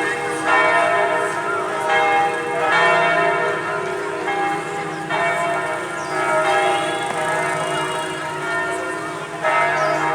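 The church bells of St. Joseph's Cathedral in Hanoi ringing a peal. Several bells are struck in turn, a fresh stroke about every second, and their rings overlap and hang on.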